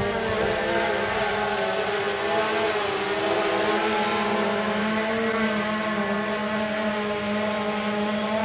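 DJI Phantom 2 quadcopter's electric motors and propellers spinning steadily: a buzzing whine of several close pitches that waver slightly, over a hiss.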